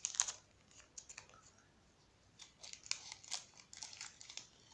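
Clear plastic packaging sleeve crinkling and rustling as it is handled, in short crackles: a burst at the start, then a quick run of them through the second half.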